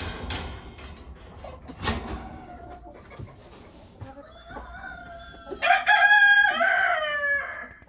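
A rooster crows in the second half: one long crow of about three seconds that swells and falls away. A single sharp knock comes about two seconds in.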